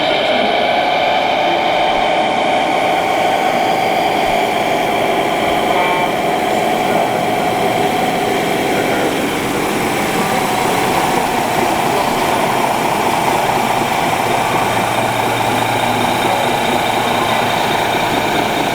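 Radio-controlled 1/14-scale construction model running: a steady motor whine over constant mechanical noise, sagging slightly in pitch partway through.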